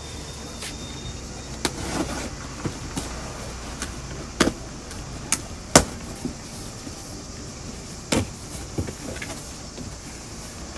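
Cardboard parcel being handled and opened by hand: irregular scrapes, clicks and knocks as the box is moved and its flaps pulled open, the sharpest knock about six seconds in.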